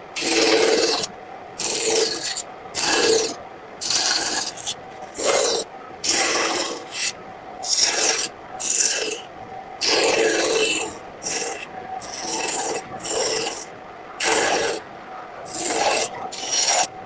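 A blade scraping across a painted wooden panel in repeated short strokes, about one a second, with brief pauses between them.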